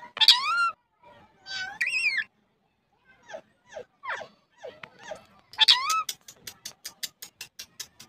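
A parakeet calling: a few loud calls with wavering pitch, then a run of short falling notes. Near the end comes a fast, even series of clicks, about eight a second.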